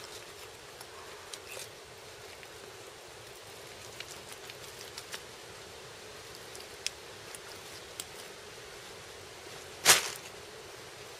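Quiet handling sounds of a knife and gloved hands cutting through a deer carcass: scattered faint clicks and rustles over a steady low hum, with one loud brief thump about ten seconds in.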